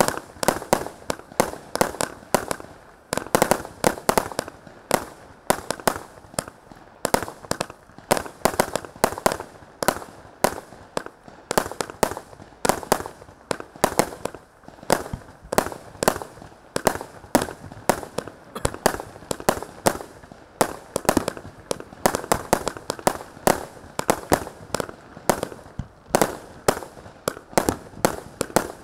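A 20 mm, 100-shot consumer fireworks cake firing in rapid succession, a steady run of sharp shots about three a second, each sending up a small star burst.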